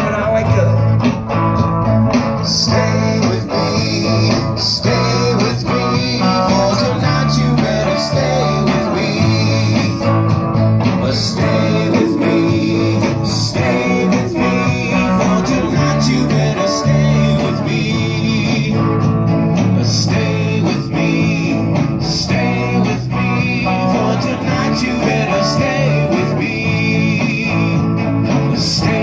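Live band playing a blues-rock song during a sound check: guitar over bass and drums, with cymbal hits every couple of seconds and no vocal line.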